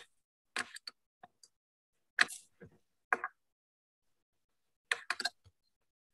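Short sharp clicks and taps in irregular clusters, about a dozen in all, coming through a video call's audio with dead silence between them.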